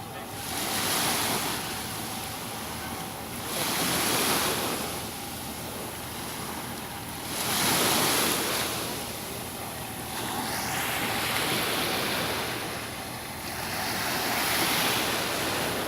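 Sea waves washing in, swelling and falling away about every three to four seconds, with wind blowing over the microphone.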